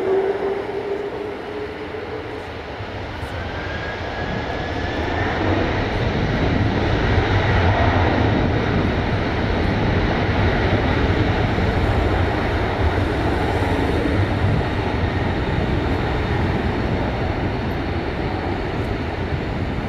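Boeing 747-400's four jet engines spooling up for takeoff: a whine rises in pitch over a few seconds and the sound swells into a steady, heavy rumble as the jet starts its takeoff roll.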